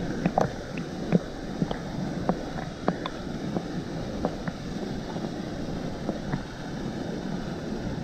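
Waterfall pouring into a plunge pool: a steady rushing noise, with irregular small splashes and slaps of water close by.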